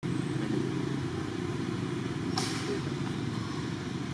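Steady low engine rumble, with a single sharp click about two and a half seconds in.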